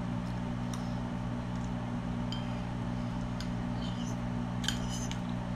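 Steady low mechanical hum, like a kitchen appliance or fan running, with a few faint light clicks of a spoon against a plate while eating.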